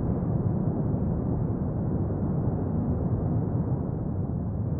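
Cumbre Vieja volcano erupting: a steady low rumble with no distinct blasts.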